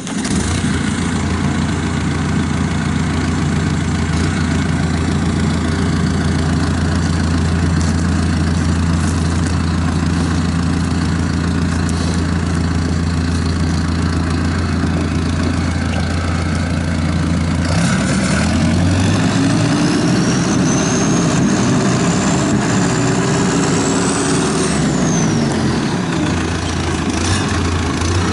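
2010 John Deere 6430 tractor's diesel engine running at a steady idle just after starting. About two-thirds of the way in the revs climb and are held up for several seconds, with a high whine rising alongside. Near the end the engine drops back to idle.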